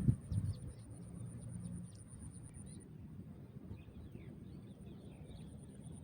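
Outdoor ambience: wind rumbling on the microphone, with a louder gust or bump right at the start, small birds chirping in the middle, and a steady high pulsing insect trill that drops out partway through.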